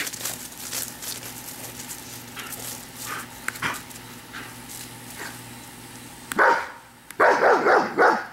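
A dog barking: a first bark about six seconds in, then several quick barks in a row near the end. Before that only faint knocks and rustling.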